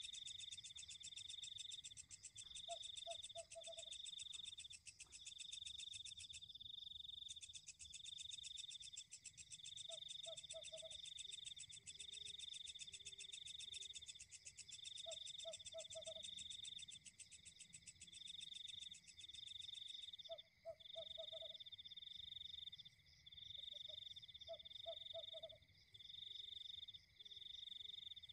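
Faint night chorus: insects keep up a steady, high-pitched pulsing trill, while a frog calls about five times in short runs of three or four quick notes.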